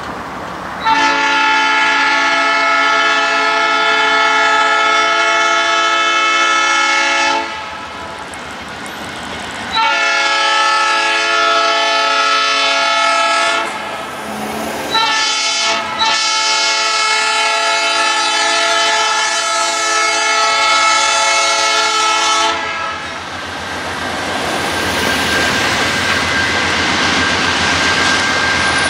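Lead diesel locomotive, GE C40-8W, sounding its multi-tone air horn in the grade-crossing signal: two long blasts, a short one, and a final long one. After the horn stops, the rumble of the approaching locomotives' diesel engines builds.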